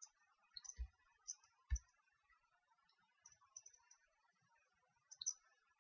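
Near silence with a few faint, scattered clicks from a computer mouse and keyboard as a text box is grabbed, rotated with Shift held, and released.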